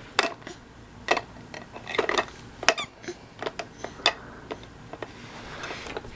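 A baby handling a toy: irregular light clicks, taps and clinks, about a dozen of them scattered through the few seconds.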